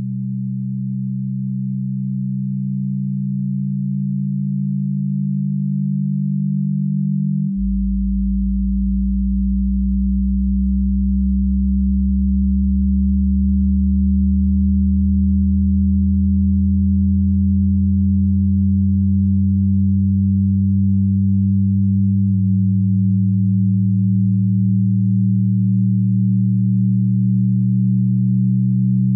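Layered, steady, low electronic tones forming a droning backing bed for a hypnosis track. About seven and a half seconds in, the higher tones drop out and a deeper tone comes in. The pitch shifts slightly again near the end.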